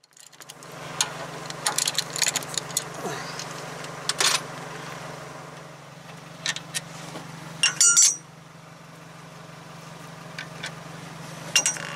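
Scattered metallic clinks and taps from hands working the brake-line clip and the rusty brake caliper, with the loudest cluster about eight seconds in, over a steady low hum.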